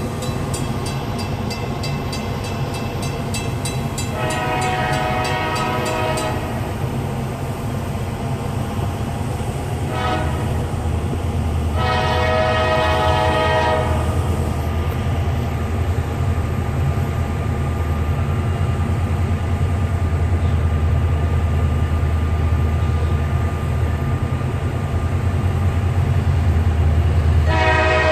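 Train horn sounding in separate blasts (a long one, a short one, then another long one, and a fresh blast starting near the end) over the steady low rumble of a passing train, which grows louder about halfway through.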